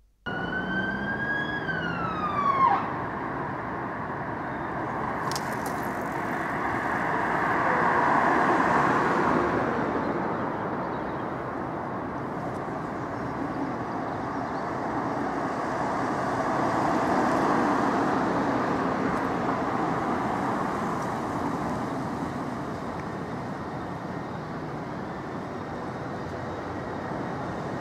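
London ambulance sirens over road traffic: a siren tone glides up then down over the first few seconds, then a broad wash of siren and traffic noise swells and fades twice.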